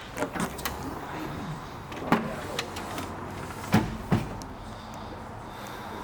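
Sharp clicks and knocks, about six of them spread through the first four seconds, from a BMW X5 being handled, over a steady low hum.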